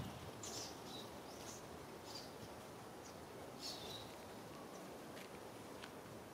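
Faint, short high-pitched chirps of small birds, scattered about once a second over a steady faint background hiss.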